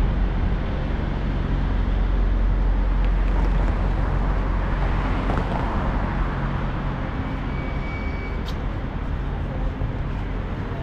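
City street traffic: a steady low engine hum with vehicles passing, one swelling past about five to six seconds in, and a sharp click near the end.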